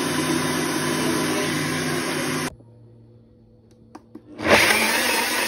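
Smeg countertop blender running steadily as it blends jerk marinade. It cuts off abruptly about halfway through, and after a short pause and a couple of faint clicks it starts up again near the end.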